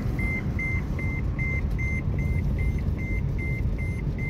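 An electronic warning beeper in a car sounds a steady run of short, identical high-pitched beeps, about two and a half a second, over the low rumble of the car's engine and tyres heard inside the cabin.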